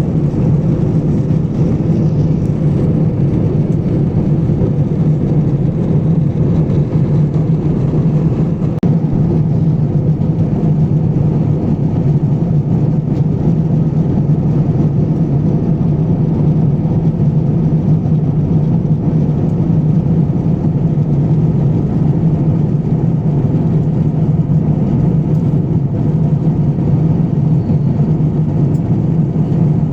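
Steady cabin drone of an Airbus A350-1000 in cruise flight: engine and airflow noise heard inside the cabin, an even rushing hum with a strong low tone that does not change.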